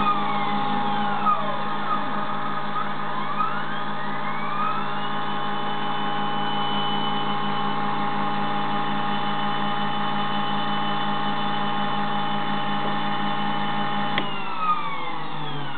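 Stepper motors of a CNC tool-and-cutter grinder whining in rising and falling glides as they speed up and slow down to feed the diamond wheel and turn the end mill, over the steady hum of the grinding wheel's motor. About fourteen seconds in the steady hum stops and further stepper glides follow.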